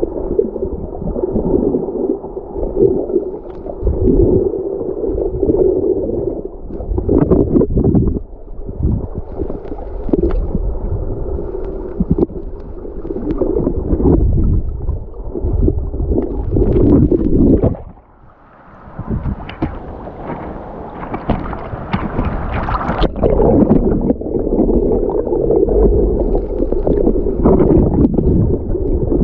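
Wind buffeting the microphone and sea water splashing and gurgling around a kayak on open sea. The rumble is loud and ragged, with a brief lull about eighteen seconds in.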